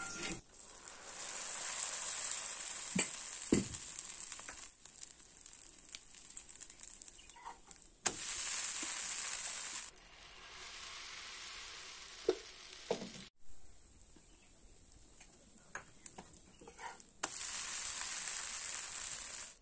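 Oil and dosa batter sizzling on a hot iron dosa griddle, in several stretches that start and stop abruptly, with a few light taps.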